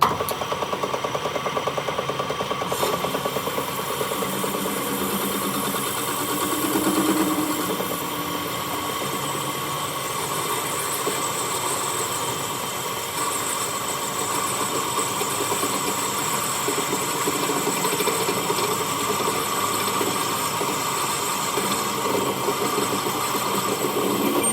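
A workshop machine starts abruptly and runs steadily with a fast, even chatter and a constant hum.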